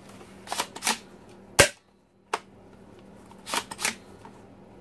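Hard plastic clicks and clacks as a toy M203-style grenade launcher is fitted to the underside Picatinny rail of a Nerf blaster. The clicks come in small groups, and the loudest is a single sharp snap about a second and a half in.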